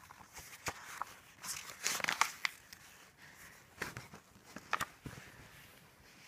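Paper pages of a paperback picture book being turned and handled: crisp rustling and crinkling with small taps, in two clusters, one about half a second in and another around four seconds in.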